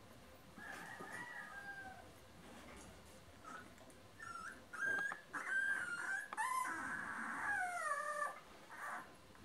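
Newborn husky puppies squeaking and whimpering in thin, high cries: a few short ones early, then a denser run of longer squeals from about the middle, several sliding down in pitch near the end.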